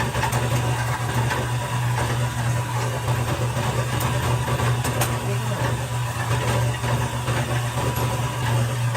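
Machinery running with a steady low hum, with a few faint clicks.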